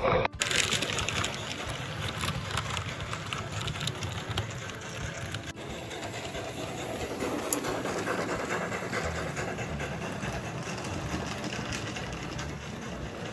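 OO gauge model train running along the track: a steady fine clatter of small wheels on the rails and the running gear, with a brief break just after the start.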